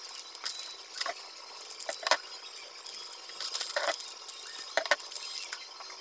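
Hands rummaging in a plastic bag of small insulated wire ferrules: the bag crinkles and the ferrules clink against each other in scattered short clicks.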